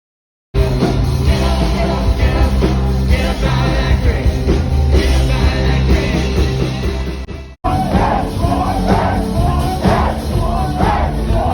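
Loud music with a heavy bass beat and singing voices, cut off briefly about two-thirds of the way through before carrying on with more singing.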